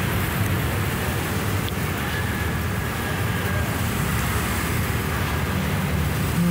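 Steady road traffic noise, a constant hum of passing vehicles with no sudden events.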